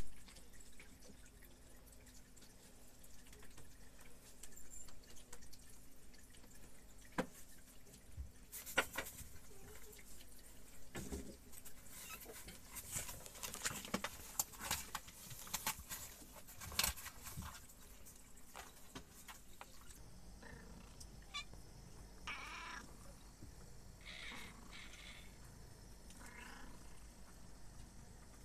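Cats eating dry kibble from bowls: irregular crunches and clicks, thickest in the middle stretch. After a change in background, a few short cat calls.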